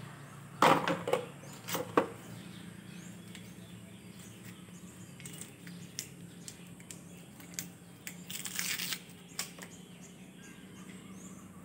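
Small metal tools and tubes clicking and clattering against a plastic tyre-repair kit case, a sharp cluster of knocks about a second in, then scattered light ticks and a short rustle as the rubber string plugs are pulled from their strip.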